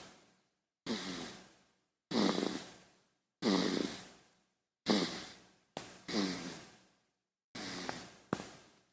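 A baby snoring: a run of short snuffly breaths, roughly one every second and a quarter, each starting sharply with a low, falling vocal tone and fading out, with dead silence between them.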